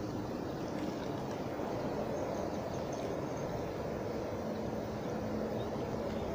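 Steady low rushing outdoor background noise with no distinct events.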